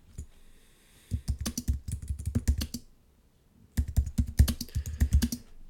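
Computer keyboard typing: two quick runs of keystrokes separated by a pause of about a second.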